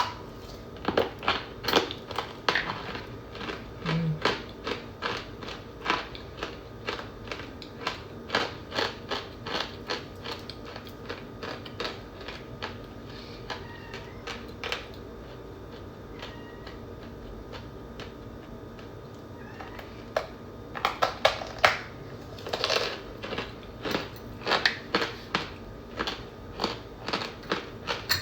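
Chunks of compressed cornstarch crunching and crumbling under fingers: a stream of sharp, dry cracks in irregular clusters, easing off partway through and then picking up again densely near the end.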